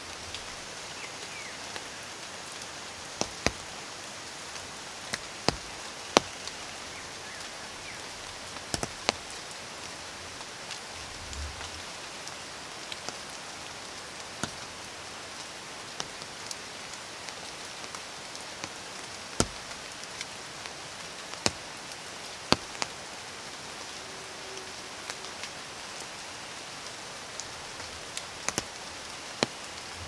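Steady rain in dense forest: an even hiss of rainfall, broken by sharp, irregular drips of heavier drops every second or so.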